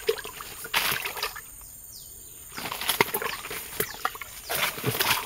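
Someone pushing on foot through forest undergrowth: leaves and brush rustle and crunch in irregular bursts, with a couple of sharp clicks a few seconds in.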